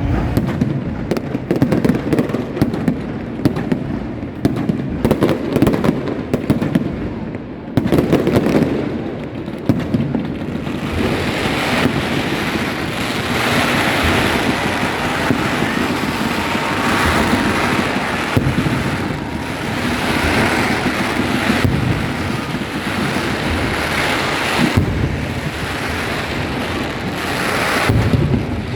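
Fireworks going off: many sharp bangs in quick succession for about the first ten seconds, then a dense crackling hiss that swells and fades in waves.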